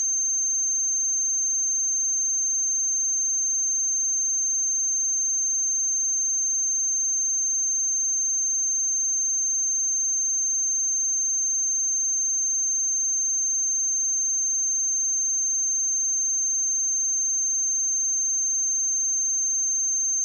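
A pure 6312 Hz sine-wave test tone, a single steady high-pitched whistle-like pitch held at constant level without a break.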